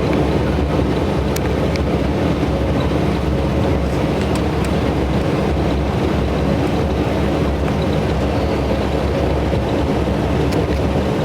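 Steady drone of a moving tour bus heard from inside the cabin: engine hum and road noise, with a few faint ticks.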